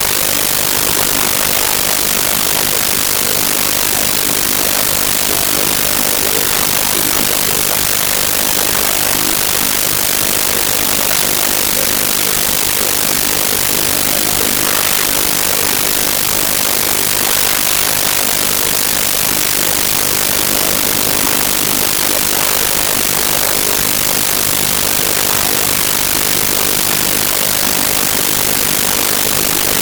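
Loud, steady static hiss from a faulty audio recording, the same level throughout and strongest in the treble.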